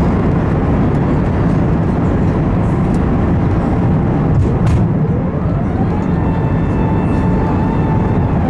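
Airbus A380 cabin noise on approach: the steady, loud rush of airflow and engines. A single click comes about halfway through, and then a whine rises in pitch and holds steady.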